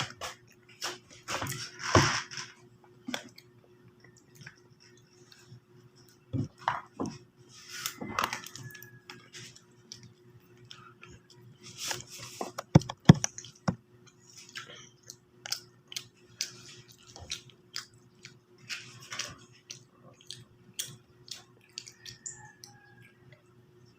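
Eating at the table: spoon and fork clinking and scraping on a plate, with chewing, in irregular bursts over a faint steady hum.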